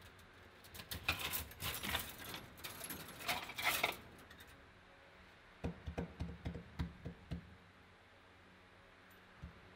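A loose tangle of scrap copper windings rustling and clinking as a hand rummages through it, for about three seconds, followed by a few soft low knocks.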